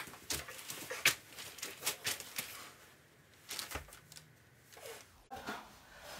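Light rustling and handling noises, paper or clothing: several short rustles in the first two and a half seconds, then a few fainter ones.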